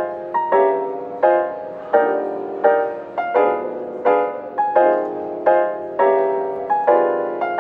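Background music: piano chords struck one after another in an unhurried rhythm, each ringing and fading before the next.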